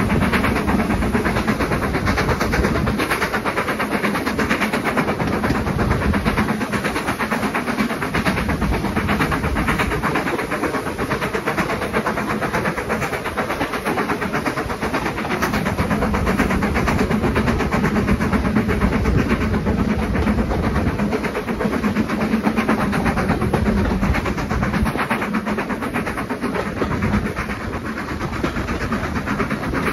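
BR Standard Class 4 2-6-4T tank locomotive 80136 working hard, a rapid run of exhaust beats heard from a carriage of the train it is hauling, with the carriages' wheels running on the track. The sound is loud and steady throughout.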